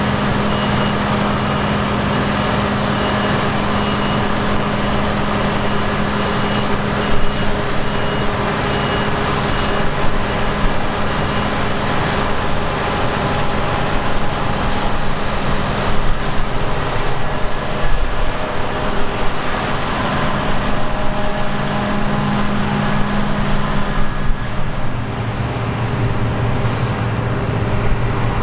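Heavy diesel farm machinery running steadily at a grain harvest: combine harvester and tractor engines at work, with a deeper engine tone coming up near the end.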